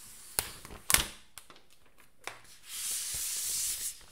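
iPad packaging being opened close to the microphone. Two sharp clicks come in the first second, the second louder. Near the end there is about a second of steady tearing hiss as the protective wrap is pulled off.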